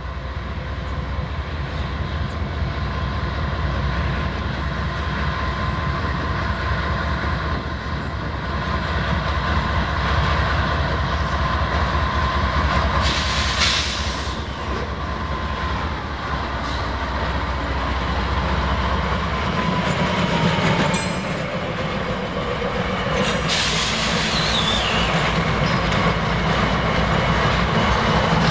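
A Norfolk Southern freight train's diesel locomotives passing at close range, their engines drumming low until a little past two-thirds of the way through. Steel wheels clatter over the rails throughout, with a few short high screeches from the wheels.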